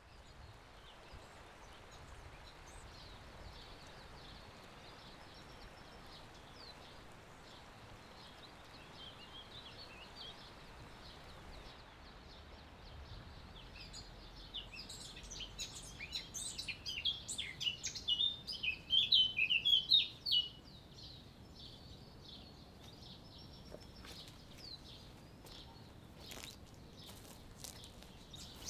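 Small birds chirping and twittering over a steady outdoor hiss. A burst of loud, busy chirping builds about halfway through and stops suddenly about two-thirds in, with fainter chirps after.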